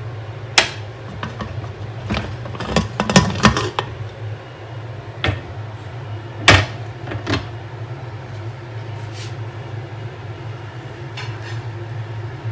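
Aluminium pressure cooker being opened: a series of metal clicks and clanks from the lid and vent, the loudest about six and a half seconds in, over a steady low hum.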